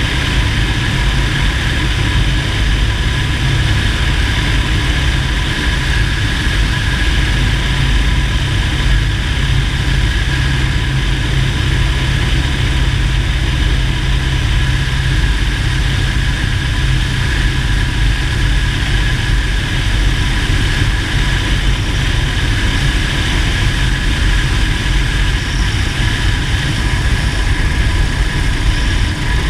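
Single-engine light aircraft's engine and propeller running steadily: a constant, even low drone with a faint steady whine above it.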